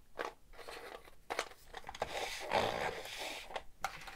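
Plastic Makita vacuum floor brush handled and put down on a metal workbench: scraping and rustling, with a knock a little over a second in and another near the end.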